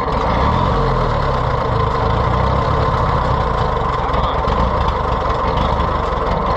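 Case VAC tractor's four-cylinder gasoline engine running steadily after being coaxed back to life.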